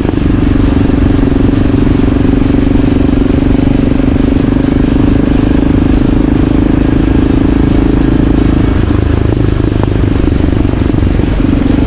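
Motorcycle engine running at a steady cruising speed, with wind noise on the microphone; the engine note drops for a moment near the end and then picks up again.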